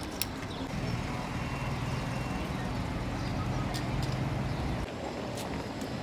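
A motor vehicle's engine running close by in street traffic: a steady low hum that builds about a second in and drops away about five seconds in. A single sharp click sounds right at the start.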